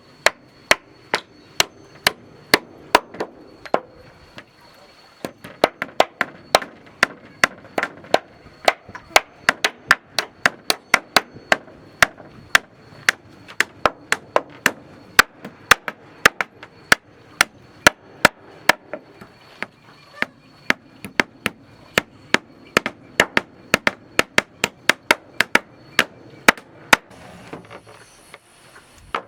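Hammer striking wood in a rapid run of blows, about three a second, pausing briefly about four seconds in: wooden floor planks being nailed down.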